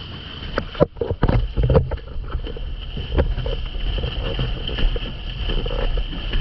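Windsurf board planing over choppy sea: water rushing and splashing under the hull, with several sharp slaps against the chop about a second in. Wind buffets the microphone with a low rumble, and a steady high whistle sits over it.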